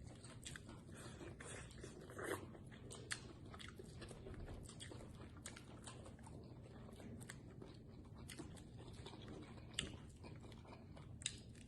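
Quiet chewing and crunching of deep-fried frog legs with a crushed Flamin' Hot Cheetos crust, with many small scattered clicks.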